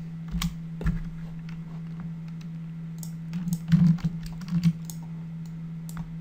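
Scattered clicks of a computer keyboard and mouse, a few separate presses rather than continuous typing, over a steady low hum.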